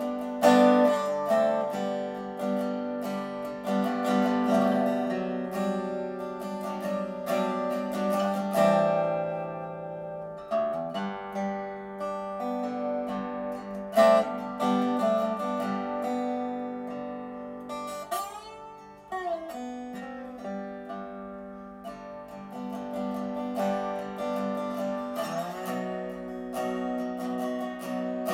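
Guitar played solo, strummed and picked chords with ringing notes, and a couple of notes sliding in pitch past the middle and near the end.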